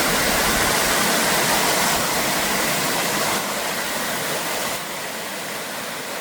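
Waterfall rushing steadily, a dense roar of falling water that gets quieter in steps over the second half.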